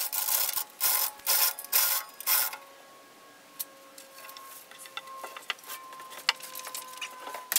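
Metal chain and rigging hardware rattling in several quick bursts, then faint scattered clicks as the load settles.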